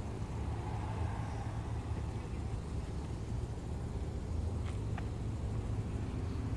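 Steady low rumble of background noise, with two faint clicks about five seconds in.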